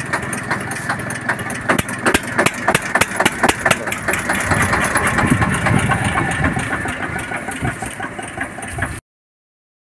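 Air-cooled diesel engine of a 1975 Eicher tractor running with a rapid, uneven knocking beat, given a little throttle now and then.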